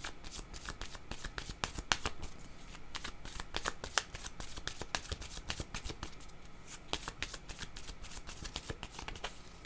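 A deck of oracle cards shuffled by hand, passed from hand to hand in an overhand shuffle: a continuous run of quick, irregular card-on-card flicks and slaps.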